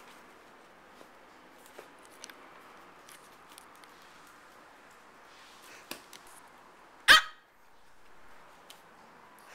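A micro teacup poodle gives a single short, loud bark about seven seconds in, over faint scattered clicks and scuffles.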